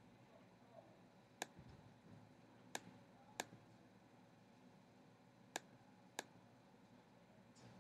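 Five sharp single clicks of a computer's pointer button, spaced unevenly with two pairs about two-thirds of a second apart, over a faint steady hiss.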